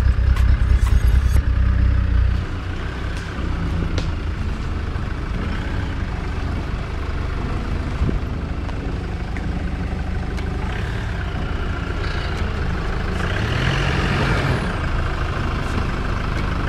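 Off-road vehicle engines working in low gear on a dirt trail. A diesel Land Rover Discovery rumbles loudly close by for the first two seconds or so, then drops away. After that, a Jeep Wrangler's engine runs steadily as it crawls closer, revving up briefly near the end.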